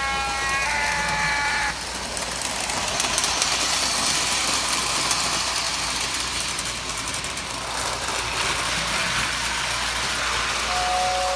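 A Lionel postwar diesel locomotive's electric horn sounds a buzzy blast, dropping in pitch before it stops about a second and a half in. The toy train then runs on its three-rail track with a steady rushing, clicking noise. Near the end a whistle tender's whistle starts blowing a steady two-note chord.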